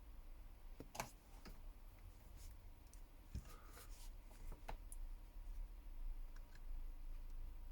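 Faint scattered clicks and light taps of a phone and small repair tools being handled on a workbench, over a low steady hum.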